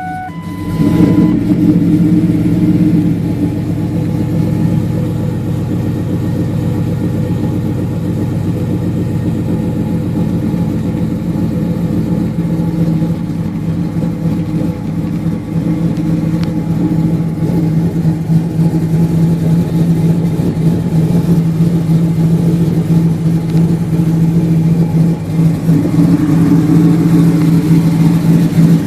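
Supercharged, cammed 5.4 L V8 of a 2004 Ford F-150 SVT Lightning with a Whipple blower and Bassani exhaust, coming up sharply about a second in and then running steadily at idle. It gets a little louder near the end.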